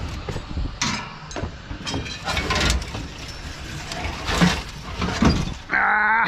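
Scrap metal clanking and clattering as pieces are thrown down onto a pile: a run of separate knocks and impacts.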